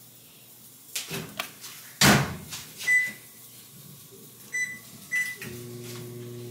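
A loud thump about two seconds in, three short keypad beeps, then a microwave oven starting up with a steady hum.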